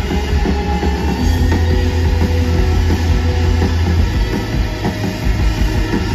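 Live band playing a loud electronic rock instrumental through an arena PA, with a heavy bass line under dense synths and drums, heard from among the crowd.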